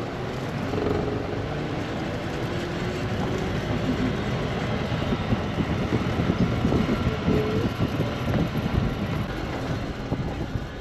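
A vehicle's engine pulling away and speeding up, then running as it drives over a rough dirt track, with uneven rattling and bumping.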